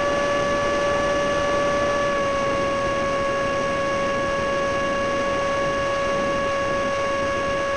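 Stock electric ducted fan of a TWM J-10B RC jet, on a 4S LiPo, whining steadily at a held throttle, heard from a camera on board over a constant rush of air noise. The pitch eases down slightly about two seconds in.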